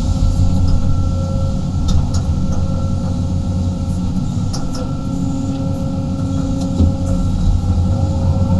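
A 35-ton excavator's diesel engine and hydraulics running under digging load, heard from inside the cab as a steady low drone with a faint whine above it. A few light knocks and clicks come through, the sharpest a little before the end, as the bucket works the soil.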